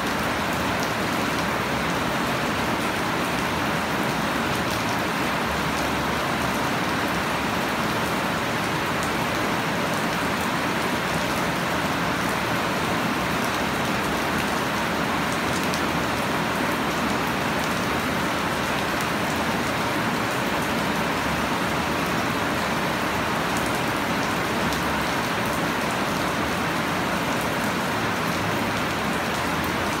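Steady heavy rain falling on leafy plants and bare ground: a dense, even hiss with fine drop ticks, unchanging throughout.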